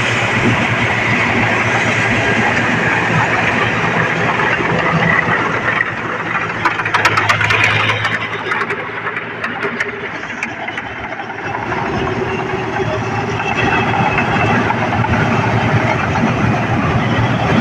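New Holland 8070 combine harvester running with a steady low engine hum, with a cluster of sharp clicks about seven seconds in; it drops quieter for a few seconds, then comes back up.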